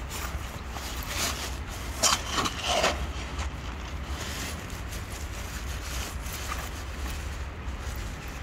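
Wind rumbling on the microphone over outdoor street background noise, with a brief louder noise lasting about a second, starting about two seconds in.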